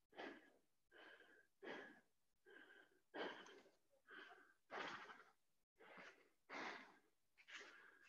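A person breathing hard after burpees, panting in quick, noisy breaths a little more often than once a second while recovering between sets.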